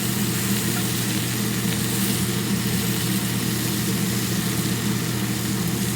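Spice-rubbed chicken strips sizzling steadily as they blacken in a hot pan, over a constant low hum.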